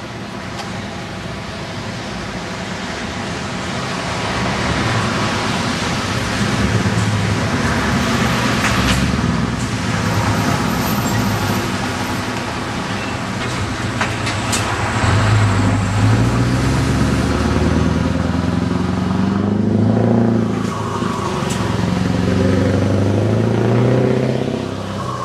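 Scania V8 truck engine pulling away and accelerating through the gears, getting louder. Its pitch rises and then drops at each gear change, several times over.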